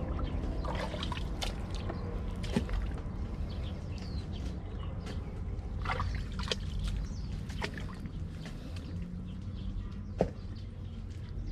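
Wet mud and water squelching and sloshing, with scattered small splashes and clicks, as an arm digs down into a deep, flooded mud crab burrow.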